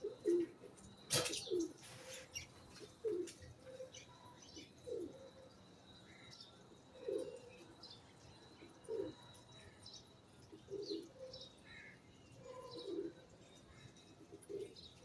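Pigeons cooing: short low coos repeat every second or two. There is one sharp loud clap about a second in, and faint chirps from small birds.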